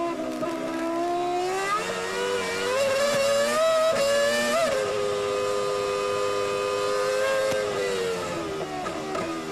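Formula One car's V10 engine accelerating hard in the wet. Its pitch climbs for about four and a half seconds, jumps and drops at a gear change, holds steady at high revs for a few seconds, then falls away near the end as the car lifts off.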